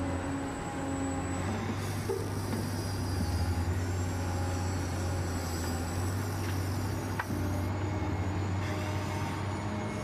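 Huina 1580 RC excavator's electric motors and gearboxes whining as the arm and bucket move through dirt, the whine shifting in pitch as the motions change, with a couple of light knocks.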